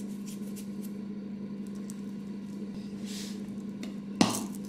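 Steady low hum with faint light ticks of salt being sprinkled over a bowl of meat filling, then a single sharp click from a pepper grinder about four seconds in.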